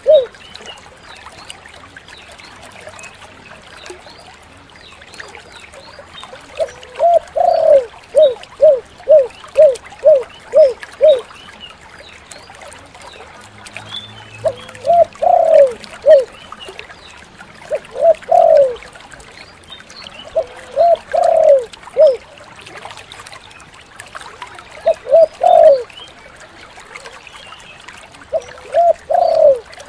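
Spotted dove (tekukur) cooing: about six phrases, each a quick run of short low coos, with the longest run about a third of the way in. The call is the "kuk 7" pattern.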